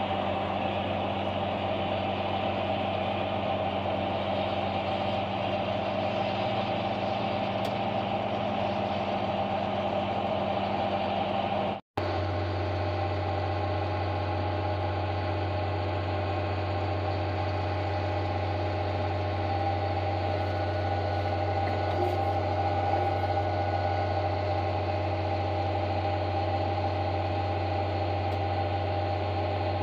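Steady drone of farm machinery running. First an engine runs at an even pitch while a forage harvester chops corn. After a short break, the drive of an H&S forage box wagon turns its beaters and conveyor as it unloads chopped corn silage, with a deeper, steady low hum.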